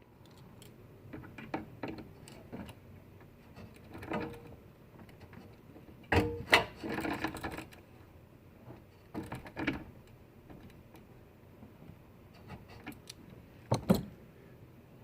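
Hand tools tightening the fasteners of a window regulator inside a car door: short bursts of mechanical clicking and clatter with pauses between them.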